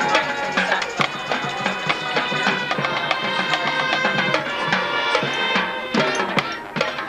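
Marching band playing: sustained wind and brass chords over drum and percussion strikes, easing briefly near the end.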